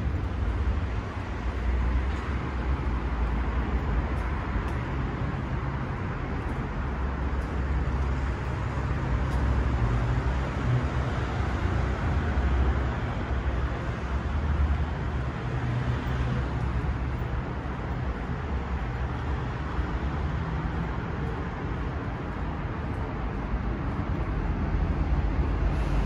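Road traffic: cars passing along a busy street, a continuous tyre and engine rumble that swells and eases as vehicles go by.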